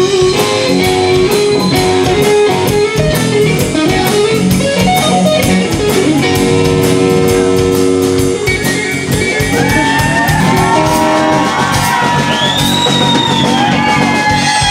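Live blues-rock band playing: an electric guitar leads with held notes over bass guitar and drum kit, and in the second half the guitar bends its notes up and down.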